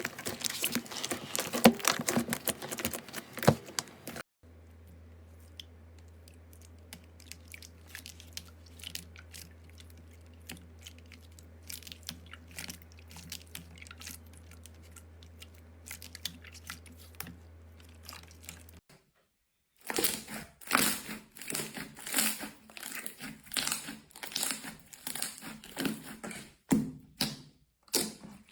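Slime being squeezed and pressed close up, a run of crackling, popping clicks. Through the long middle stretch the clicks are fainter over a low steady hum, and from about two-thirds of the way in they come back loud as quick crinkly squishes.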